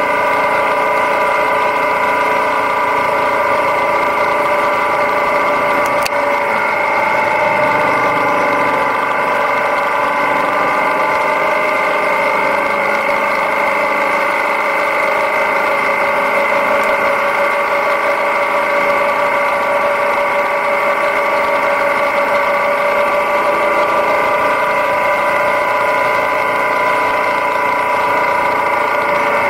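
Yamaha Ténéré 700's parallel-twin engine running at a steady cruise, holding one even pitch, with a single brief click about six seconds in.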